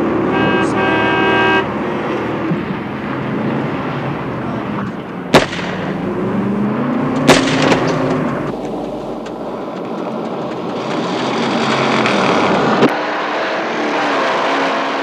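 Car engine running hard at speed on a dirt road, its pitch rising and falling, over steady road noise. Three sharp bangs cut through, at about five, seven and thirteen seconds in.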